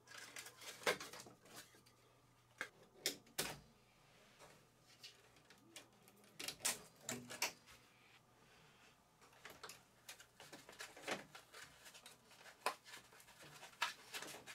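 Hands handling packing material inside a 3D printer's enclosure: scattered light clicks, taps and rubbing of cardboard, plastic and foam, irregular and a second or two apart, with a quieter stretch a few seconds in.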